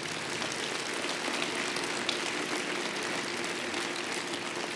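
Audience applauding: a steady, dense clatter of many hands clapping that begins to taper off near the end.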